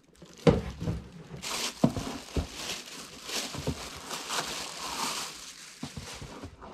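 Packaging and plastic parts being handled while a boxed pet water fountain is unpacked: rustling and crinkling with a few sharp knocks.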